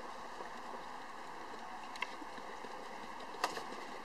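Horse loping on arena sand: muffled hoofbeats under a steady hum of background noise, with two sharp clicks, about two seconds in and near the end.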